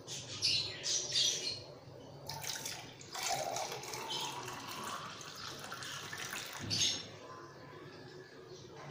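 Watermelon juice poured from a plastic bowl into a drinking glass: a few splashes, then from about two seconds in a steady pouring stream whose pitch rises as the glass fills, stopping about seven seconds in.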